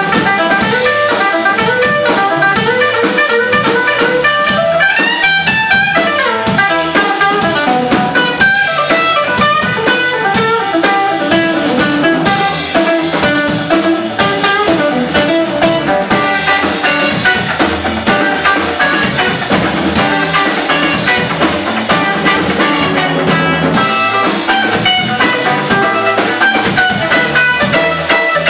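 Electric blues band playing live: an instrumental stretch with electric guitar to the fore over bass and drums, without singing.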